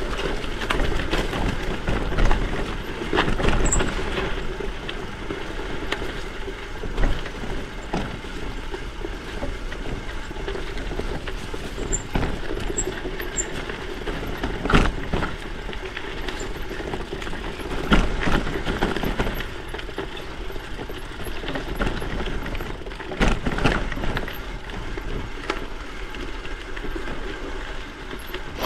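Gravel bike's 650×47c WTB Byway tyres rolling over a rough unpaved trail: steady rolling noise, with frequent irregular knocks and rattles as the bike hits bumps.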